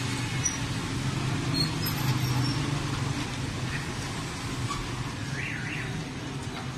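Street traffic noise under a steady low motor hum, with motorcycles and auto-rickshaws passing. Two short high chirps sound about five and a half seconds in.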